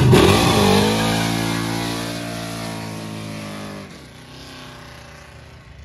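Chevrolet Nova accelerating hard away from a burnout, its engine revving high and steady and fading as it pulls off down the street. The revs drop off about four seconds in.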